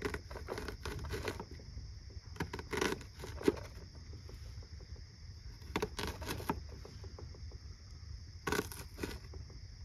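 Knife cutting an onion: irregular short clicks and scrapes, some in quick groups of two or three, with gaps between. A steady high insect chirr runs underneath.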